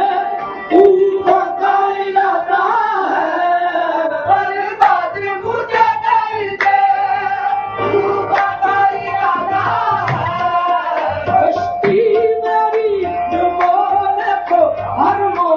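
Qawwali performed live: singing over harmonium, with tabla keeping the beat.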